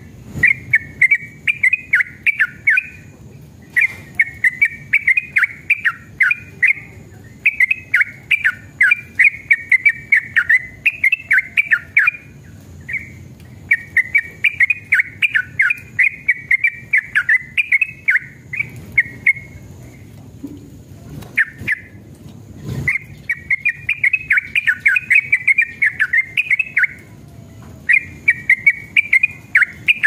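Yellow-vented bulbul singing in long bouts of rapid, chattering, bubbling notes, one bout after another with short pauses between. There is a single knock about 23 seconds in.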